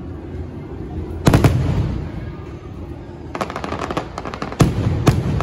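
Aerial firework shells bursting overhead at close range: a loud double bang about a second in, a quick run of crackles around the middle, then two more loud bangs near the end.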